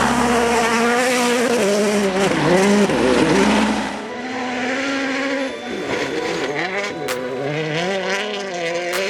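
World Rally Car's 1.6-litre turbocharged four-cylinder engine revving hard, its pitch climbing and dropping again and again through gear changes and lifts, with a couple of sharp cracks near the end.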